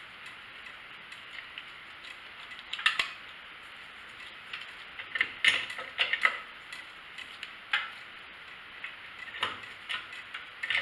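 Hand tools clicking and clinking on metal engine parts as the ignition coil's bolts are worked loose, in irregular light clicks with a cluster in the middle.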